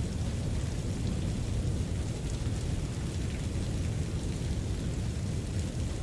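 Steady rain sound mixed with brown noise: an even, deep rumbling hiss with a faint patter of drops above it.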